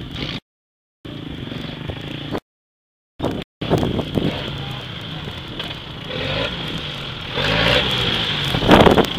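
Rally pickup truck's engine running as it drives over desert gravel, the note rising and falling and growing louder as it draws close near the end. The sound cuts out completely twice in the first few seconds.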